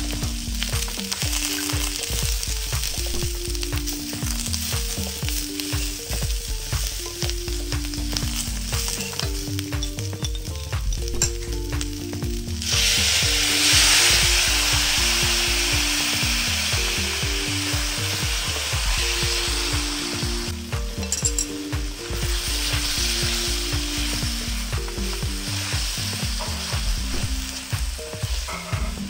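Stir-frying in a hot wok: a wooden spatula scrapes and tosses chicken pieces, onion and green pepper over steady sizzling. About 13 seconds in, a dark sauce is poured into the hot pan and the sizzle jumps up loudly, then fades back over several seconds.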